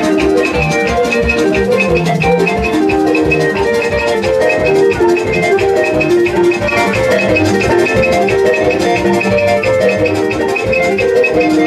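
Loud music with a steady drum beat and bright, repeating melodic lines on top.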